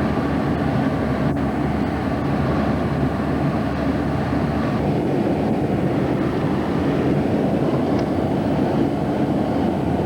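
Truck driving on a snowy road: a steady low rumble of engine and road noise from inside the cab.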